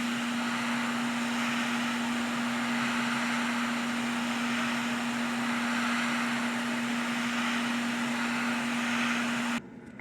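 Small electric blower fan running steadily with a constant hum over its rushing air, switched off suddenly near the end.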